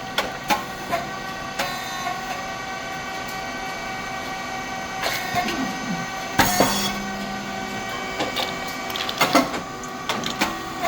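Rice cake popping machine running through a cycle: a steady hum from its motor, hydraulic pump and fan, with scattered mechanical clicks and clanks. About six seconds in there is one loud hissing pop as the heated moulds open and the rice chips puff.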